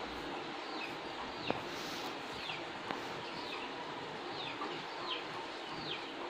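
A bird chirping repeatedly: short falling chirps, roughly two a second, over a steady low hiss, with a couple of faint clicks.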